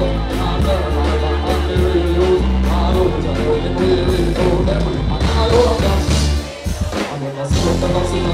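Loud live band music with a singer on a microphone, over a heavy bass line and a steady drum beat. The bass drops out for about a second shortly before the end.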